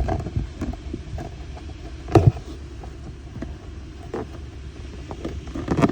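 Hands working a stubborn plastic trim clip loose, giving scattered knocks and clicks, with one sharp knock about two seconds in and a few more near the end, over a steady low rumble.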